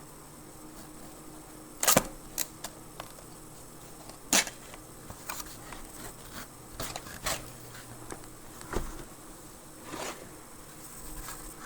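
A cardboard box and its packaging being handled and opened: scattered taps, scrapes and rustles at uneven intervals, the loudest about two seconds in and again a little over four seconds in.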